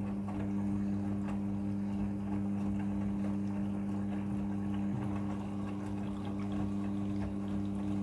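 Midea front-loading washing machine draining its second rinse water: the drain pump hums steadily while water sloshes as the drum turns the wet laundry.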